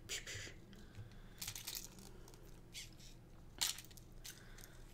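Scattered soft rustles and light clicks of a small plastic-and-fur finger toy being handled on a finger.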